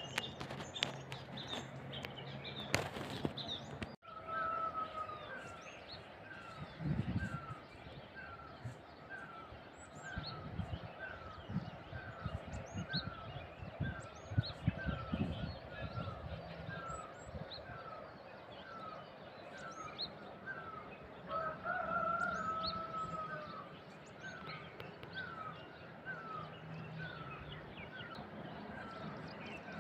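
Morning birdsong: one bird repeats a short falling note nearly twice a second, with scattered high chirps from smaller birds. Twice a longer, lower call sounds over them, briefly about four seconds in and longer around 22 seconds. A few low thumps on the microphone come in between.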